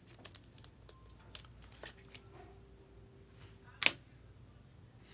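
Baseball trading cards being handled and slid against each other, with scattered faint clicks and one sharper click a little under four seconds in.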